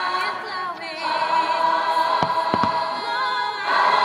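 Choral music with a full choir singing, loud and sustained, as the fireworks show's soundtrack. A little past the middle, three sharp firework bangs come in quick succession over the music.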